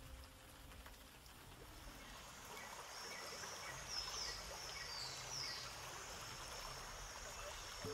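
Faint, steady rushing water like a stream, with a few short high chirps about halfway through.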